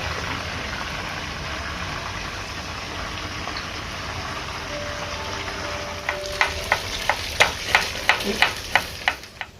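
Trevally fish frying in hot oil, a steady sizzle. About six seconds in comes a quick run of about a dozen sharp knocks, three to four a second, louder than the sizzle.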